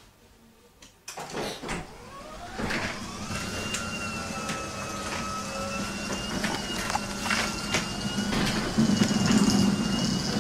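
Garage door opening: a sudden start about a second in, then a steady motor whine that rises as it gets going and holds, with repeated clicks and rattles from the door.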